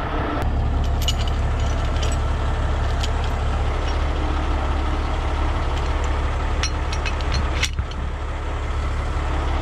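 Heavy rotator tow truck's diesel engine idling with a steady low rumble, with a few sharp metallic clinks from the lifting chains and snatch block being handled.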